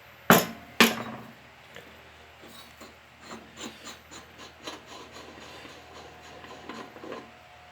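Two sharp metal knocks about half a second apart near the start, then a run of light clicks and scraping as the loosened nut and parts are taken off the lawn tractor deck's spindle shaft by hand.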